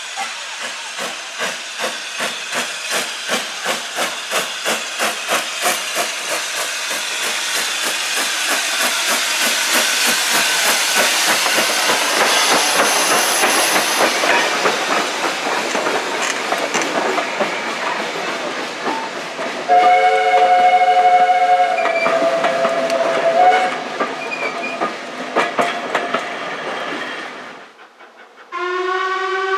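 Steam locomotive pulling away and passing, its exhaust beats quickening and running together into a steady hiss of steam as the coaches go by. About twenty seconds in, a steam whistle sounds for a few seconds. Near the end, after a cut, a second, lower-pitched whistle sounds from LMS Black Five 45231 'Sherwood Forester'.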